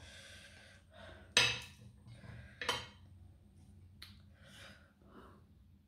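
Metal fork and spoon clinking against a ceramic plate: two sharp clinks about a second and a half apart and a lighter one later, with soft rustling and breathing between.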